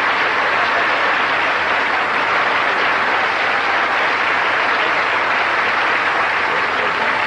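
Large audience applauding steadily, a dense even clapping, as a speaker is welcomed to the podium.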